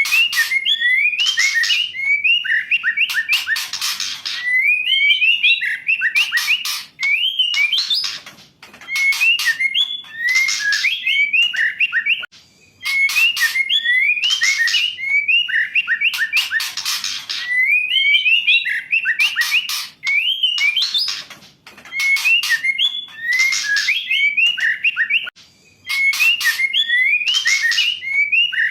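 Female white-rumped shama song: a short phrase of quick whistled notes sliding up and down, ending in a harsh rattling burst, repeated over and over about every three seconds.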